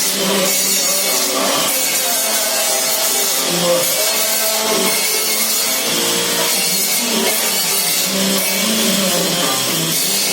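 Background music: a pitched melody over a dense, steady high-frequency wash.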